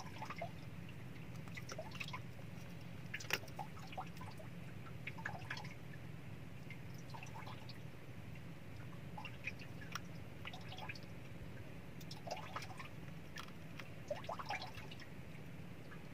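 Scattered small clicks and wet squishing taps of hands working a metal jig's assist hook out of a freshly caught fish's mouth, over water dripping and lapping and a steady low hum.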